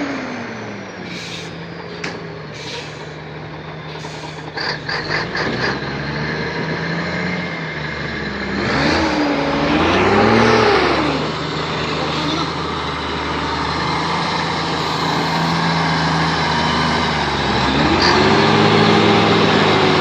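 Heavy diesel logging truck engine running under load, its revs rising and falling about halfway through and again near the end. A quick run of rattling clicks comes about five seconds in.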